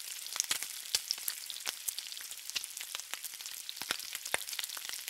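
Bacon frying on a flat-top griddle: a steady sizzle with frequent sharp pops and crackles.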